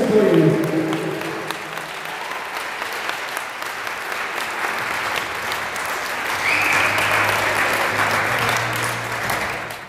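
Seated dinner audience applauding a performance, with the last notes of the backing music dying away in the first second. The clapping swells a little about two-thirds of the way through.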